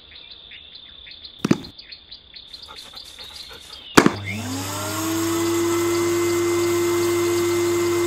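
A eufy HomeVac H11 cordless handheld vacuum switched on with a click about halfway through; its motor spins up over about a second to a steady whine over a hiss of air. Before that, a faint high steady chirring with regular ticks.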